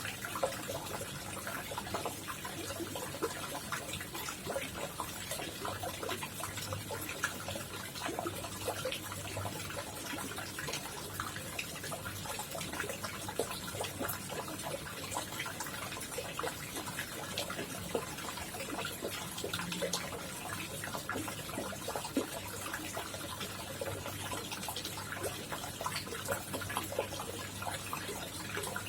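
Koi pond water trickling and splashing steadily, a dense run of small droplet splashes, with a faint low hum beneath.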